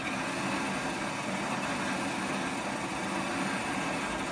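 Dome drive motor of an R2-D2 droid turning the bare, dome-less toothed dome ring, giving a steady whirr of motor and gears. It is switched straight on at full speed and cut off abruptly, with no acceleration ramp.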